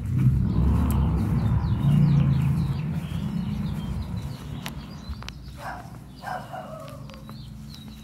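Low rumbling noise that is loudest for the first few seconds and then fades, with small birds chirping and two short falling calls around six seconds in.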